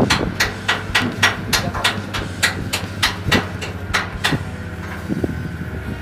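Rapid, even knocking, about three strikes a second, stopping about four seconds in, over a steady low hum.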